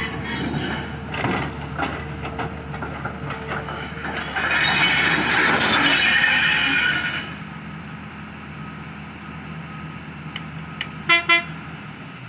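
Diesel engines of heavy earthmoving machinery running with a steady low hum. A loud hissing rush comes in about four seconds in and lasts about three seconds. Near the end there are two short, pitched blasts in quick succession.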